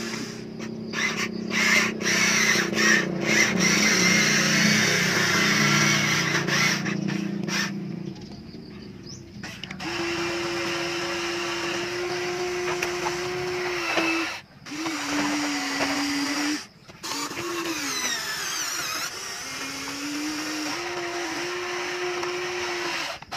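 Electric motors and gear drives of a Huina remote-control toy excavator running, a buzzing whine that shifts in pitch as the tracks and arm move. It is louder and rougher for the first several seconds, then settles into a steadier whine that cuts out briefly twice and bends up and down in pitch.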